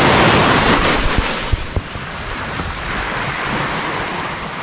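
Small waves breaking and washing up the sand at the shoreline. The wash is loudest for the first second or so, then eases to a softer, steady wash, with wind on the microphone and a few brief low bumps.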